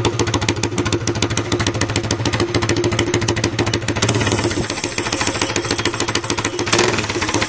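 Honda GX200 single-cylinder four-stroke kart engine running steadily near idle, a fast, even pulse of firing strokes.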